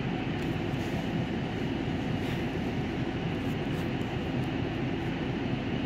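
Interior running sound of a Nagoya city bus on the move: a steady, low engine and road rumble, with a few faint light clicks of rattling.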